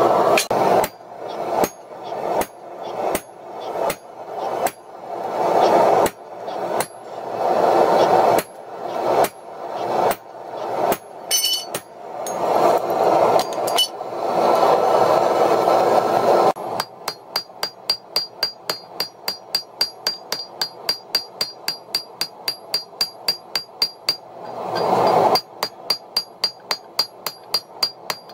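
Blacksmith's hammer striking a red-hot mild-steel axe head on an anvil. Heavy blows come about one a second over a steady roar, then about two-thirds of the way through the blows switch to quick light strikes, about four a second, with a high ringing tone from the anvil.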